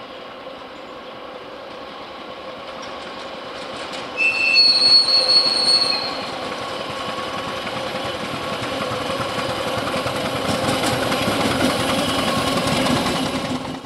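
ChME3 diesel shunting locomotive, with its six-cylinder diesel engine, running light and passing close by, its engine and wheel noise growing louder as it nears. About four seconds in there is a loud high-pitched squeal lasting nearly two seconds, and the wheels clatter over the rail joints as it goes by.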